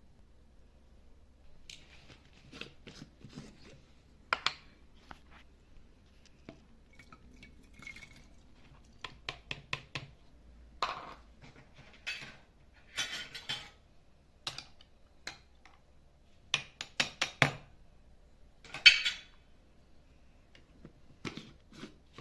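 Kitchen utensils and containers being handled: scattered clinks, taps and knocks, with a few short scraping or rustling sounds, the loudest near the end.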